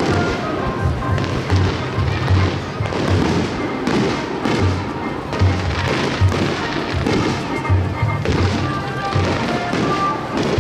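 Fireworks display bursting and crackling, with repeated low thuds, over continuous music.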